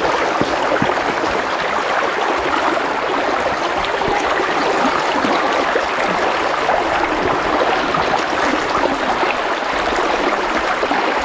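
Steady rush of running water with a fine crackle.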